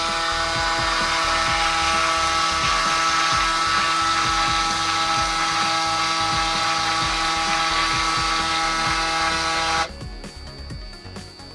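Braun Series 9 electric shaver running in its Clean & Charge dock, a steady buzz as the dock starts its cleaning cycle. It cuts off abruptly after about ten seconds.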